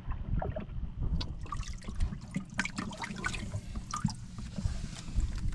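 Water sloshing and splashing in a boat's flooded fish hold as a hand moves the catch about, with a quick run of small splashes and drips from about a second in.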